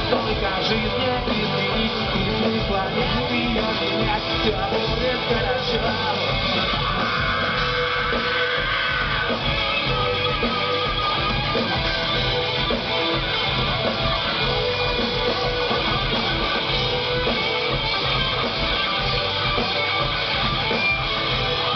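Live rock band playing loudly, electric guitar to the fore over bass and drums, heard through the concert PA.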